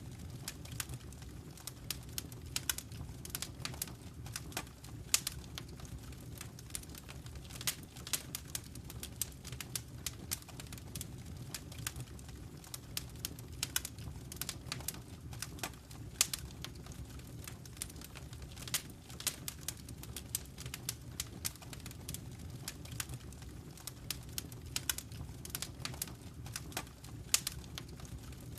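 Wood fire crackling in a fireplace: frequent sharp irregular pops and snaps over a steady low rumble of the flames.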